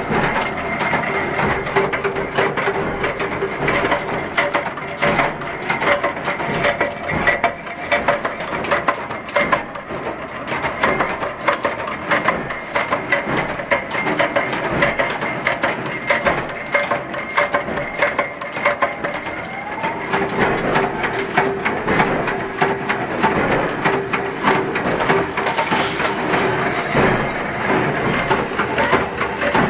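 Mechanical flywheel power press running in a metal workshop: dense, rapid metallic clatter and ticking over a steady hum.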